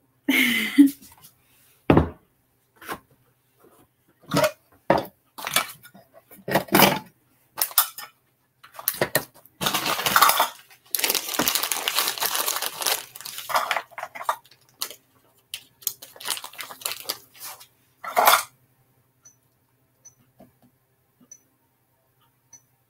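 Kitchen handling sounds: a series of knocks and clinks of a crock pot lid and dishes, with a longer stretch of plastic bag rustling and crinkling about halfway through. The sounds stop a few seconds before the end.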